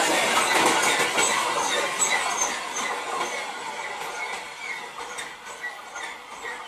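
Wheels of a loaded freight train's last wagons and brake van clattering over the rails, with short high-pitched squeaks, fading steadily as the train runs away.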